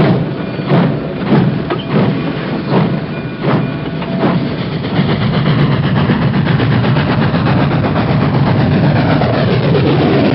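Train getting under way: a regular beat, about one every 0.7 s, quickens over the first few seconds until it blends into a steady running rumble.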